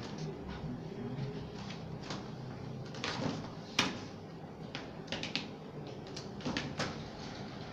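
A stiff printed sticker sheet being handled and bent by hand: a few short crackles and snaps of the paper, the loudest about four seconds in and a cluster near the end, over a low steady hum.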